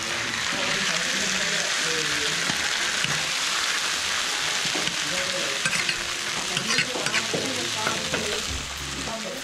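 Honey-soy-marinated chicken kebabs sizzling steadily on a hot cooking surface, with a few sharp crackles now and then.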